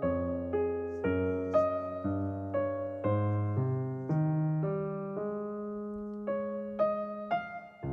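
Background piano music: slow, gentle chords and melody notes struck about twice a second, each note fading away.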